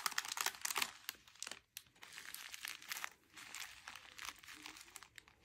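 Clear plastic bags crinkling as small zip-lock bags of diamond painting drills are handled and slid out of a larger plastic bag. The crinkling is louder in the first second, then fainter and intermittent.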